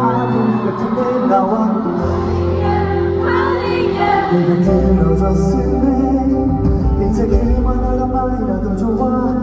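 Live K-pop concert performance: a male singer singing into a handheld microphone over the song's backing track of sustained chords and deep bass, the bass shifting note about two seconds in and again near five seconds.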